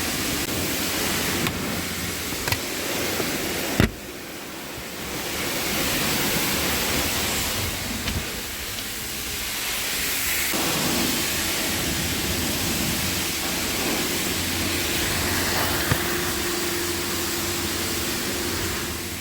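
Steady rushing air from the Nissan X-Trail's cabin AC blower fan, running throughout. Over it come a few clicks and knocks of the plastic glove box being worked loose, the sharpest about four seconds in.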